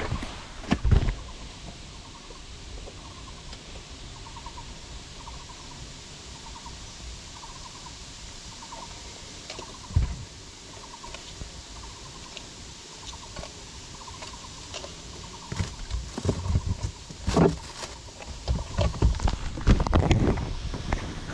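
Handling noise from the camera on the drone: knocks and rubbing as it is gripped and moved about. There are sharp bumps about a second in and at about ten seconds, then a busy stretch of knocks and scraping over the last five seconds. Between the bumps there is a steady hiss, with faint high chirps repeating about once a second.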